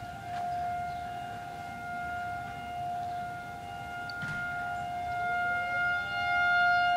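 Federal 2001 outdoor tornado warning siren sounding a steady single tone during a tornado warning, swelling louder and softer as its horn rotates. A fainter tone glides up beneath it about five seconds in.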